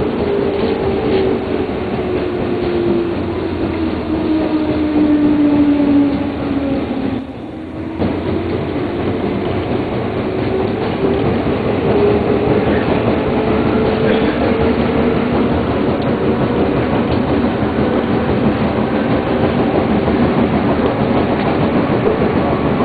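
JR Osaka Loop Line electric train running, with wheels clattering over the rails. A steady whine falls in pitch over the first seven seconds, drops out briefly, then slowly rises in pitch again.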